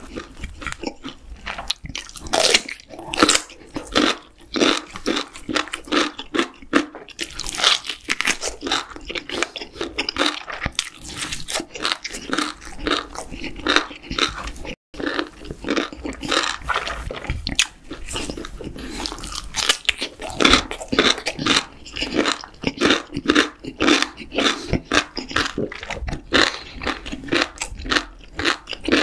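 Close-miked chewing of a full mouthful of food, with a continuous run of crunching and wet mouth sounds. It breaks off for an instant about halfway through.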